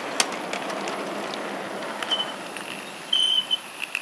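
Miniature ridable steam locomotive running past on its track: a rushing running noise that fades away, with scattered sharp clicks. A short, loud, high-pitched tone sounds about three seconds in.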